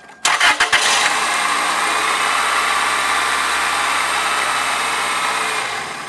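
2000 Toyota Corolla's 1ZZ 1.8-litre four-cylinder engine cranking briefly on the starter and catching within about a second, then running steadily before fading out near the end. It starts readily now that its hot-wire mass airflow sensor has been cleaned, after a spell of hard starting and stumbling idle that the owner puts down to a failing sensor.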